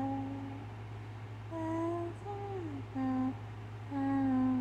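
A woman humming a tune unaccompanied: a handful of short held notes with gaps between them, one sliding down in pitch about halfway through and the last held longest.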